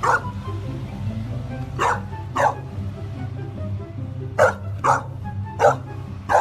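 A dog barking, about seven short separate barks, some in pairs, over background music.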